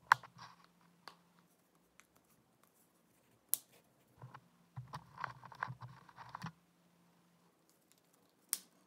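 Scattered sharp clicks and taps from handling a smartphone's small parts during a screen repair, with a busier stretch of clicking and handling noise about five seconds in.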